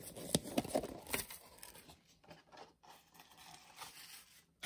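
Toy blind-bag packaging being handled and opened by hand: crackly rustling and tearing, with several short sharp crackles in the first second or so, then fainter rustling.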